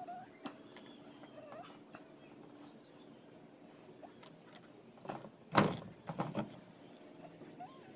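Light clicks and ticks from a small homemade popsicle-stick bow shooting bamboo-skewer arrows at a bamboo-and-wood target. About five and a half seconds in comes one sharp wooden knock, the loudest sound, followed by a few lighter knocks.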